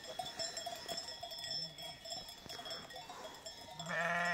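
Sheep bells ringing faintly and steadily from a grazing flock. A sheep bleats once near the end, a single steady call about a second long, with a fainter bleat about halfway through.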